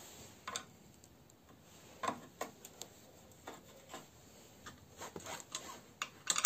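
Scattered light clicks and taps of hand tools and handling on a scroll saw's metal and plastic body, with a wrench working a bolt on its underside near the end.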